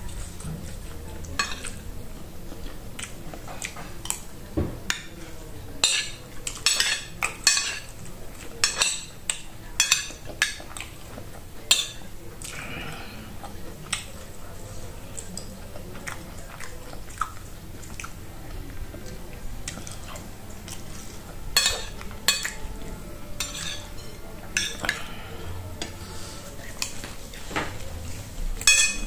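Metal spoon clinking and scraping against a ceramic plate of rice, repeated sharp clinks in two runs, with close-up chewing in between.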